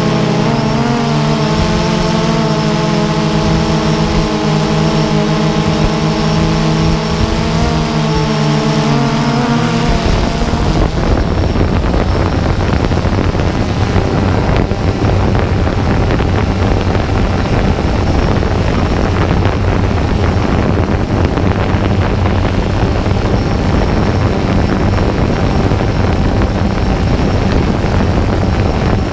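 Quadcopter drone's electric motors and propellers heard through its own camera: a steady whine of several pitches that waver slightly. About ten seconds in, it gives way to a rougher rushing noise with a low hum underneath.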